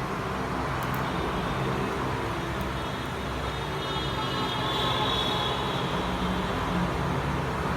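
Steady background rumble and hum, like traffic or a running fan, with no clear sound from the repair work.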